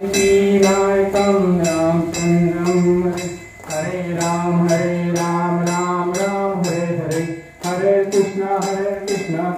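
Devotional music: long held sung notes over a steady jingling percussion beat, about two strokes a second. The music dips briefly twice, once about three and a half seconds in and again near seven and a half seconds.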